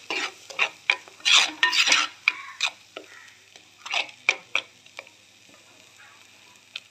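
Stainless steel ladle stirring and scraping a thick ground coconut masala paste around a clay pot in quick, irregular strokes, with the paste sizzling in hot oil. The stirring stops about five seconds in, leaving a faint sizzle, and there is a single click near the end.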